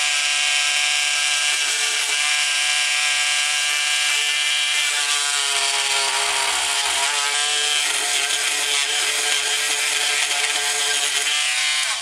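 Dremel oscillating multi-tool running at a low speed setting (setting two), its blade shaving the edge of a slider inside the speaker cabinet. It makes a steady motor whine whose pitch sags a little midway as the blade bites. It cuts off abruptly just before the end.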